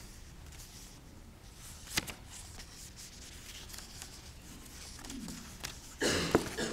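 Soft rustling of a paperback book's pages being handled and turned close to a lectern microphone, with a sharp click about two seconds in and a louder rustle near the end.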